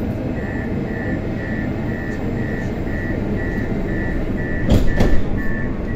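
Door-closing warning on a Moscow Metro 81-765 'Moskva-2019' train: a short high beep repeating about twice a second over the steady hum of the car. Two sharp knocks come near the end as the doors shut.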